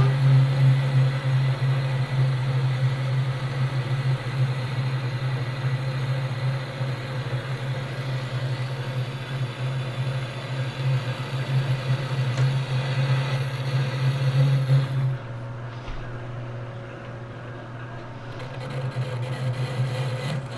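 Metal lathe turning the spray-welded coating on a motor shaft's bearing journal with a brazed carbide tool bit: a steady chattering drone of the cut, which the machinist puts down to too much radius ground on the tool's tip. About fifteen seconds in it drops to a quieter running sound.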